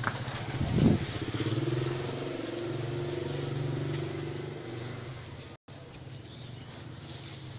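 A small engine running with a steady note that fades after about four seconds. A thud comes just under a second in.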